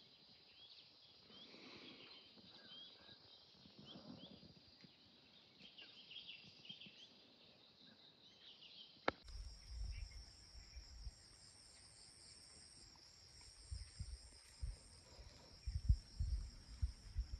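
Faint insects chirping in quick repeated high calls. About halfway there is a click, and after it a steady, pulsing high insect drone, with irregular low rumbles on the microphone that grow near the end.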